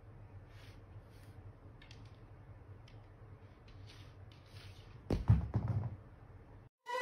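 A cat pawing and nosing at a smartphone on a wooden table: faint soft taps over a low hum, then a louder rattling noise about five seconds in that lasts about a second.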